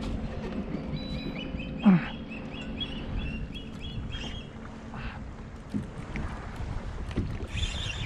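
Kayak trolling motor humming steadily over water and wind noise, with a run of short high chirps about a second in and a single louder falling sound near two seconds.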